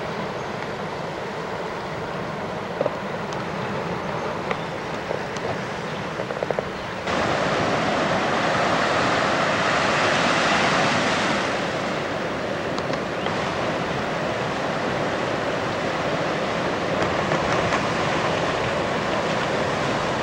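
Ocean surf and wind on the microphone: a steady rushing noise with a faint low hum and a few sharp clicks under it. About seven seconds in it steps up abruptly to a louder, brighter rush, which eases off slightly after about eleven seconds.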